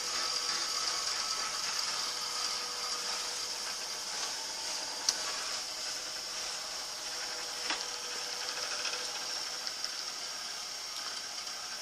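Bench grinder running steadily: a constant motor hum and whine under a hiss, easing slightly toward the end, with a couple of sharp clicks.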